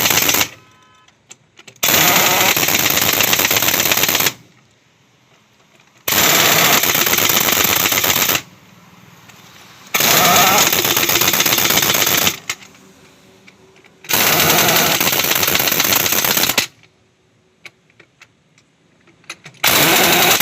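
Heavy impact wrench hammering truck wheel nuts tight after a tyre refit. It runs in repeated bursts of rapid hammering, each about two seconds long, with short pauses between them as it moves from nut to nut.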